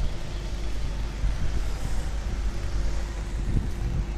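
Outdoor background noise with a steady low rumble, like traffic or wind on the microphone.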